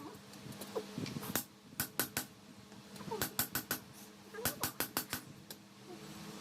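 Hand hammer striking a khukuri blade: sharp metal blows in short quick runs of three to six strikes, with a steady low hum behind.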